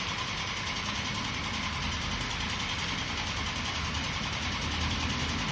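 Steady mechanical drone with a low rumble and a hiss over it, unchanging throughout.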